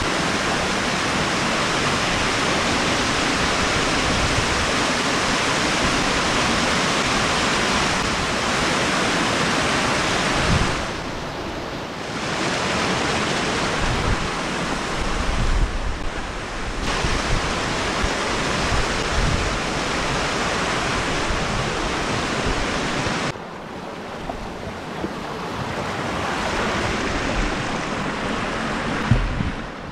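Small woodland waterfall pouring over rocks: a steady rush of water. The rush drops in loudness for about a second some eleven seconds in, and drops again from about two-thirds of the way through.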